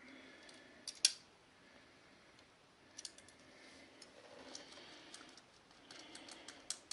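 Carpet razor knife cutting through carpet and its backing: short scratchy strokes and clicks, with a sharp, louder click about a second in and a cluster of clicks near the end.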